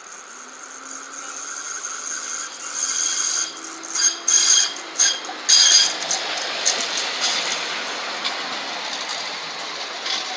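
Tramlink CR4000 tram approaching round a curve and passing close. Its steel wheels squeal against the rails in several loud, high-pitched bursts about four to six seconds in, then settle into a steady rolling rumble.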